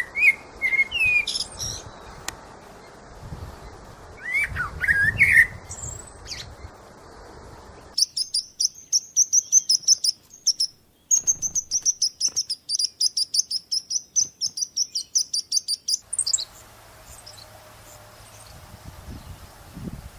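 Birds chirping. The first few seconds hold scattered short rising calls over a steady background hiss. Then comes about eight seconds of a fast, high-pitched run of repeated chirps, several a second, followed by a few faint calls.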